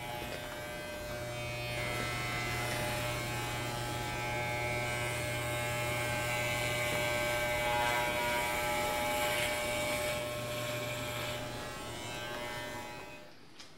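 Electric hair clippers running with a steady buzz as they cut through thick, curly hair. The buzz starts about a second in and fades out near the end.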